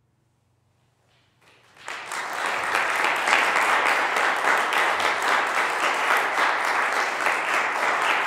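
Audience applauding: after a hush, clapping breaks out about a second and a half in and quickly settles into steady applause from many hands.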